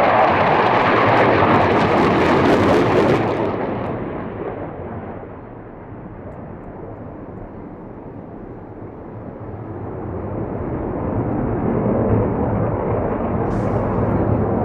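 Panavia Tornado jet flying past at low level with a loud, crackling roar that fades over a few seconds to a distant rumble, then builds again as the jet returns.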